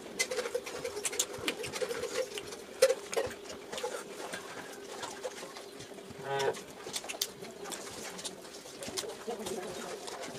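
Close-up eating sounds of a person eating fried fish and rice by hand: chewing, wet mouth and finger noises, and many small clicks. A steady faint hum runs underneath, with a brief louder hummed tone about six and a half seconds in.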